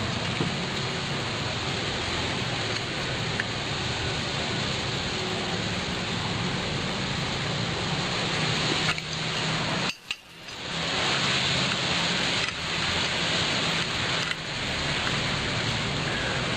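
A steady hiss with a few light metal clinks from an adjustable wrench on the washing-machine motor's mounting bolts. The sound drops out briefly about ten seconds in.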